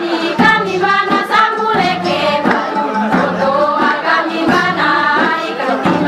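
A group of voices singing a chanted song together, over a steady low tone.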